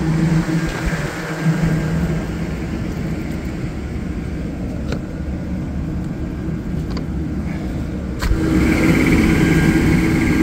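Steady mechanical hum of an Engineered Air rooftop make-up air unit running. About eight seconds in there is a clunk, and the hum becomes louder and higher-toned as an access door opens onto the running belt-driven exhaust fan.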